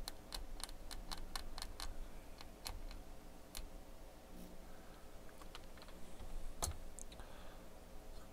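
Faint light clicks and ticks of a small metal tool picking at a corroded resistor lead on a circuit board. A quick run of about four a second comes in the first two seconds, then scattered ones, with one sharper click a little past two-thirds through.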